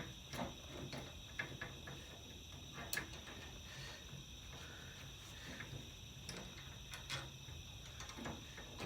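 Steady insect chirring with scattered small clicks and taps as the trailer hitch's bolt and nut are handled.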